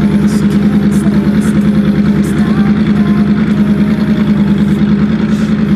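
Yamaha R1 sport bike's inline-four engine running steadily, held at one even pitch.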